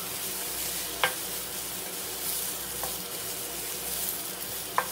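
Raw rice frying in oil with onion, green chillies and garlic and ginger paste, sizzling steadily as it is stirred in the pan. Sharp knocks of the stirring utensil against the pan about a second in and again near the end.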